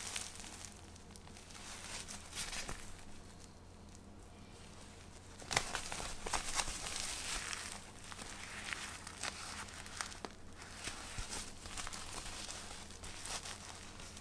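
Crinkling and rustling of a Pampers disposable diaper being handled and unfolded, in irregular bursts with small crackles, louder from about halfway in.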